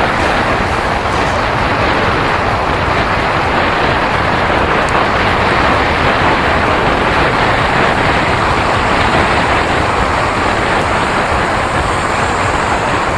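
Steady rush of wind and road noise while riding a bicycle, with wind buffeting the microphone.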